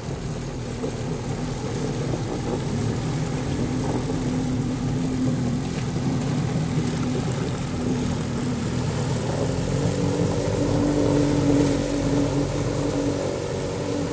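Jet ski engines, among them a 1998 Kawasaki STX-1100's two-stroke three-cylinder, running steadily across the water with a droning hum. The drone rises a little in pitch and grows louder about two-thirds of the way through.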